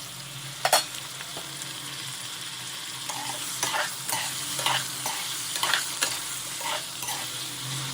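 Masala-stuffed brinjals sizzling in hot oil in a kadai, stirred with short scraping strokes about once a second from a few seconds in; a sharp knock a little under a second in.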